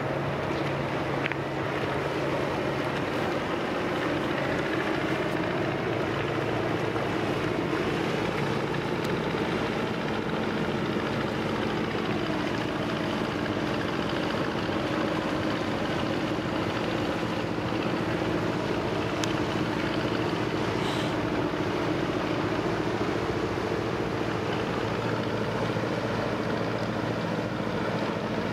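A ship's diesel engine running at a steady speed: a constant low hum whose pitch barely changes.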